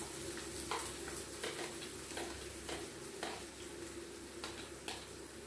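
Metal spoon clicking and scraping against a plate and pan as chopped onion is pushed into hot oil, with irregular clicks about once or twice a second over a faint sizzle.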